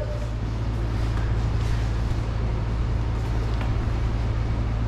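Steady low rumble of background noise, with a constant hum underneath and an even hiss above it.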